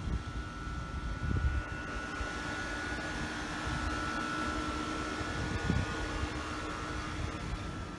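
Steady mechanical hum with one high and one low tone, over low rumbling, with a soft thump about a second and a half in and another near six seconds.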